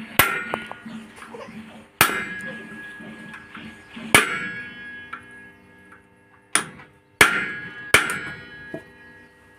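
Hammer strikes on the steel bearing hub of a tractor disc harrow, six sharp blows a second or two apart, each leaving the metal ringing. The hub's bearing has failed and is being knocked loose.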